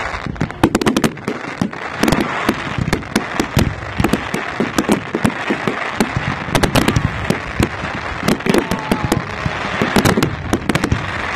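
Fireworks going off in a rapid barrage: several sharp bangs a second over continuous crackling from the bursting shells.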